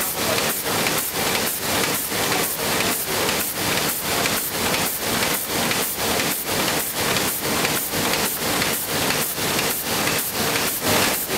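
Sheet-fed printing press running at speed: a loud, steady mechanical clatter that pulses evenly at about three beats a second as the sheets go through.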